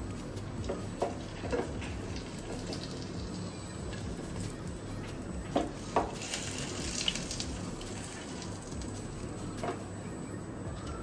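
Hot oil sizzling in a frying pan as leaf-wrapped lentil paturi shallow-fry, with a few sharp knocks of a wooden spatula against the pan and a brief louder hiss about six seconds in.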